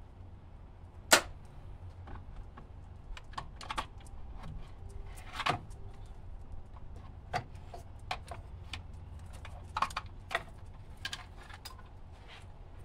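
Scattered metal clicks and knocks of hand tools and parts as an alternator is unbolted and worked loose from its bracket on an LS engine, then lifted out. One sharp click about a second in is the loudest.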